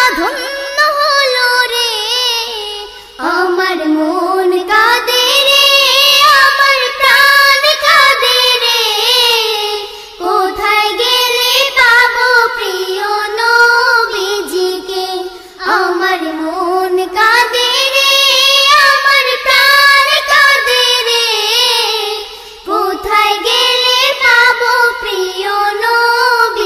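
A high solo voice sings a Bengali Islamic devotional song in long, gliding melodic phrases, pausing briefly for breath every few seconds.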